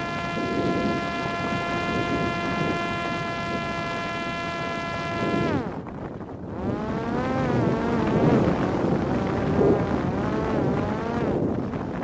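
Parrot Disco fixed-wing drone's electric motor and propeller whining at a steady pitch. It cuts off about five and a half seconds in, then returns with its pitch wavering up and down as the motor speeds up and slows. Wind rushes over the microphone throughout.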